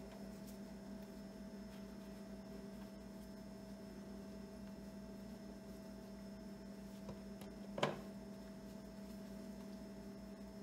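Faint steady electrical hum, with one short soft knock about eight seconds in.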